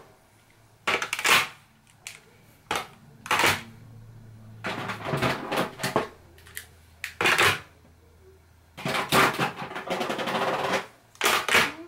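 Makeup products and acrylic storage containers clattering as they are handled and set down: a string of sharp plastic knocks and clicks, with a longer rattle near the end.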